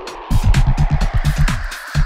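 Electronic dance music with a fast, pulsing bass beat that drops out briefly at the start and again near the end.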